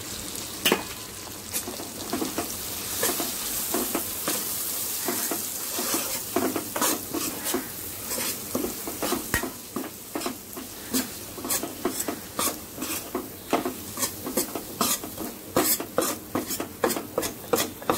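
Steel ladle stirring onion-tomato masala frying in oil in a nonstick kadai: a steady sizzle with quick knocks and scrapes of the ladle against the pan, coming faster in the second half.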